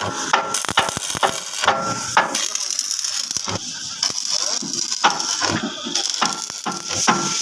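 Irregular metallic clicking and clanking of hand work on steel parts, with brief ringing tones.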